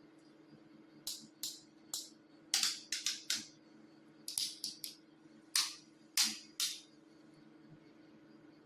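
Short sharp clicks from the BK7 e-bike's controls being tried out, about a dozen in quick groups of three or four, over a faint steady hum.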